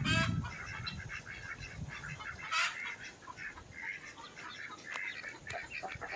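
Backyard poultry flock calling: many short overlapping clucks and peeps. A louder, rapidly pulsing squawk comes right at the start and another about two and a half seconds in.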